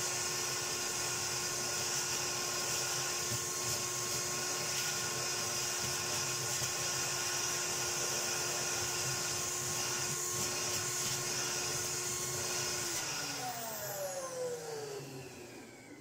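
Miele S220 cylinder-vacuum motor running steadily and sucking air through a hose and a Hoover Vortex V2000 triple-cyclone unit: a constant high whine with rushing air. Its pitch is raised by the much reduced airflow through the cyclone unit. About 13 s in it is switched off and winds down, the whine sliding lower and fading.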